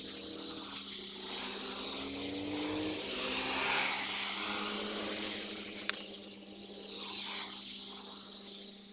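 Aerosol spray can of primer hissing in one long pass of several seconds, then a shorter burst, over a steady low hum. A single sharp click comes just before the second burst.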